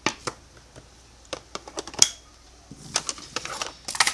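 Plastic clicks and clatter of a System Sensor Spectral Alert Classic wall strobe and its mounting bracket being handled: a string of sharp separate clicks, the loudest about two seconds in, then a quicker run of rattling clicks near the end.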